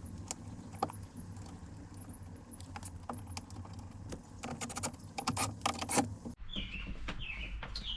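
Scattered clicks and rattles of a replacement car door speaker and its plastic mounting kit being handled and fitted into place.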